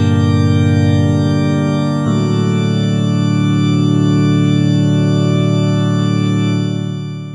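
Organ playing held chords with a slight wavering tremolo. The chord changes about two seconds in, and the sound fades out near the end.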